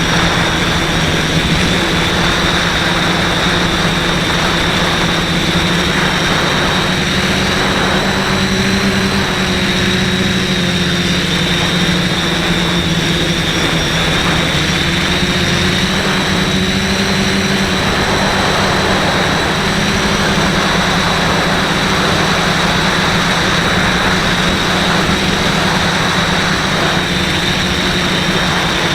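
Multirotor quadcopter's four brushless motors and propellers buzzing steadily in flight, with a high whine above the hum and small shifts in pitch as the throttle changes.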